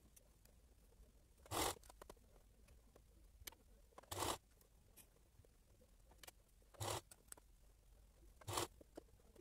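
Sewing at a domestic sewing machine: four short bursts, a couple of seconds apart, with quiet in between.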